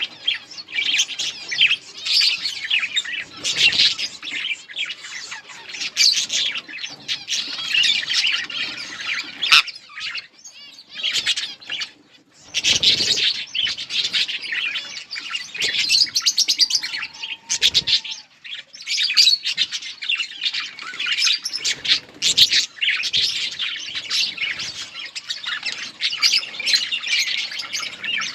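A colony of budgerigars chirping, many birds at once in a dense stream of high chirps, thinning out briefly about ten seconds in.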